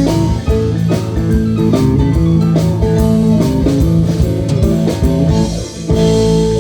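Live blues band playing an instrumental passage with no singing: guitar over bass and a drum kit.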